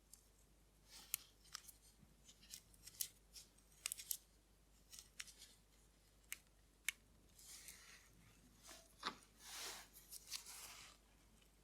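Small, sharp, irregular clicks and taps of watchmaker's tools on a vintage watch being taken apart, with a few brief rasping scrapes in the second half.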